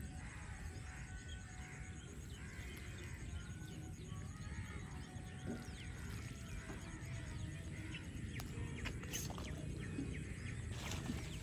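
Open-field ambience: scattered short bird calls and chirps over a steady low rumble, with a few sharp clicks near the end.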